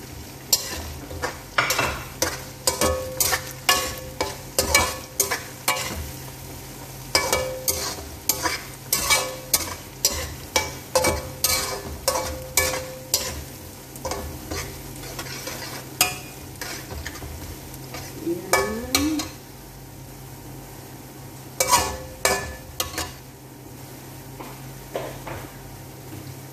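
Metal slotted turner scraping and knocking against an aluminium wok as chopped onion, garlic and herbs are stir-fried, with frying sizzle underneath. The strokes come about twice a second for the first half, then thin out to a few strikes a little past the middle, leaving only the sizzle near the end.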